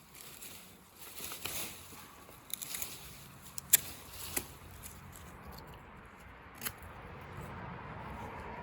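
Scattered scraping and sharp clicks, with one loud click a little before the middle and a few softer ones after, over a faint outdoor background hiss.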